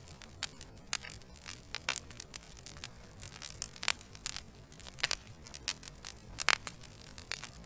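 Logs burning in a fireplace, crackling with irregular sharp pops and snaps over a low, steady rumble of flame. The loudest pop comes about six and a half seconds in.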